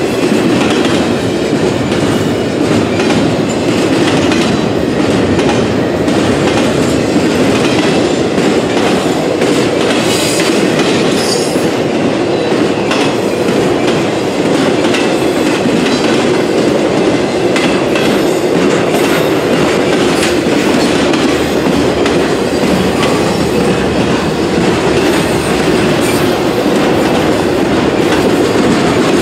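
CSX intermodal freight train's container and trailer cars rolling past at track side: a steady, loud rumble of steel wheels on rail with a clickety-clack over the rail joints.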